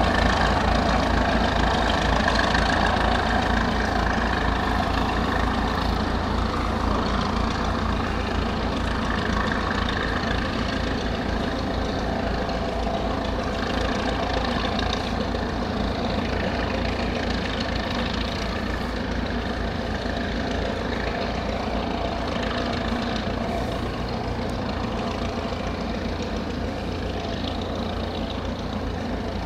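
The Hythe ferry Hotspur IV's diesel engine running steadily under way, a low continuous rumble that slowly fades as the boat draws away.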